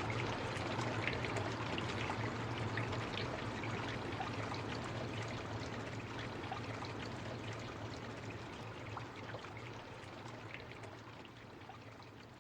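Steady rain: a dense hiss scattered with fine drop ticks, gradually fading out.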